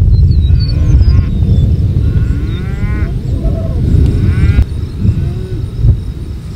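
Cattle mooing, two drawn-out calls about two and four seconds in, over a loud low rumble that runs throughout, with a few faint bird chirps near the start.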